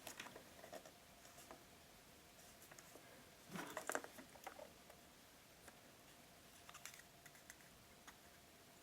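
Near silence with a few faint clicks and taps of handling, a small cluster about three and a half seconds in. The watch winder's motor does not start: the power bank is not giving it enough power.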